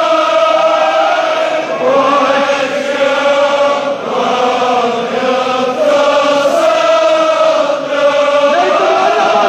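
A large crowd of men chanting a Shia mourning lament together in unison, on long held notes that shift in pitch every second or two.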